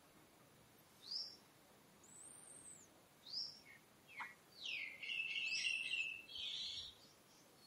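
Birds calling: short high whistled notes about once a second, some arching up and down and some falling, then a louder chattering call in the second half.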